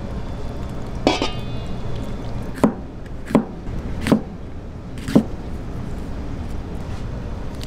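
Large kitchen knife cutting down through a stack of red bell pepper slices onto a plastic cutting board: a ringing knock about a second in, then four sharp knocks about three-quarters of a second apart, over a steady low hum.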